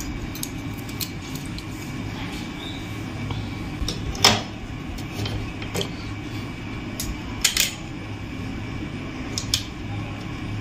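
Scattered metal clicks and clinks as a sewing machine's shuttle (rotary hook) assembly is handled and fitted back into place. The two sharpest taps come about four and seven and a half seconds in, over a steady low hum.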